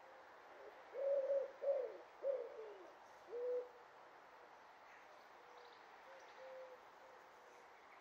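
A dove cooing: four low hooting notes in quick succession, the third sliding down in pitch, then a single fainter coo a few seconds later.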